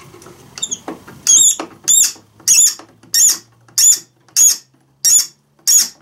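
Eight rhythmic high-pitched squeaks, about one every two thirds of a second, starting about a second in, from parts rubbing as the concrete saw's air filter assembly is worked back together; the squeaking sounds like a bunch of seagulls.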